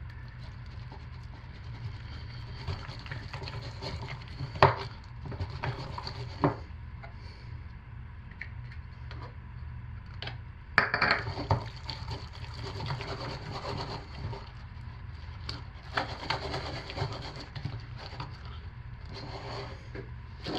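Silicone spatula stirring and scraping thick hot process soap around a plastic measuring pitcher, then scooping it into a piping bag, with scattered short knocks and scrapes over a steady low hum.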